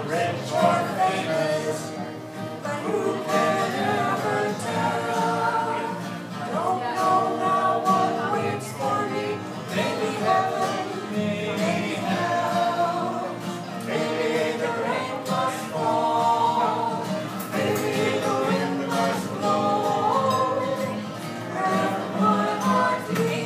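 Live folk song: two acoustic guitars strumming while several voices sing together in harmony.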